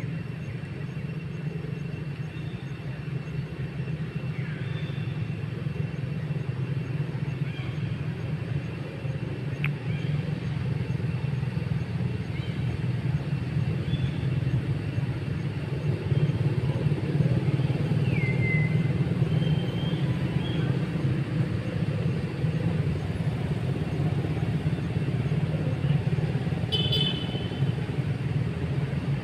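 Steady low rumble of road traffic, getting somewhat louder about halfway through, with faint short high chirps now and then.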